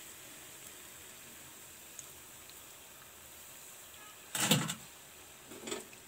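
Bondas deep-frying in hot oil in a steel pan, a faint steady sizzle, with a metal slotted spatula scraping against the pan twice: a loud scrape about four and a half seconds in and a softer one near the end.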